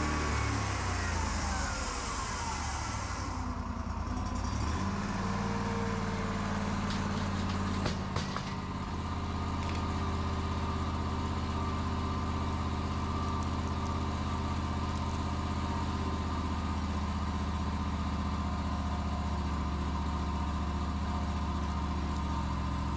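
Wood-Mizer LT40 portable band sawmill running, its power unit humming steadily. In the first few seconds a whine falls in pitch along with a hiss that stops at about three and a half seconds; a small knock comes near eight seconds.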